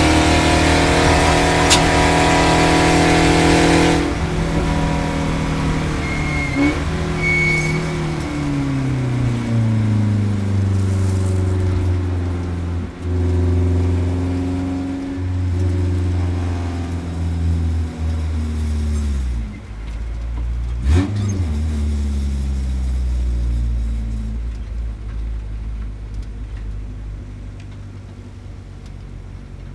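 Spec Racer Ford Gen2 engine heard from the open cockpit, running hard at speed until the throttle comes off about four seconds in. The engine note then falls in steps as the car slows, ending in a much quieter low rumble.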